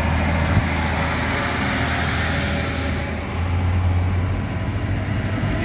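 A car's engine and tyres heard from inside the cabin while driving on the highway: a steady low drone with an even rush of road and wind noise, the drone growing a little louder about three seconds in.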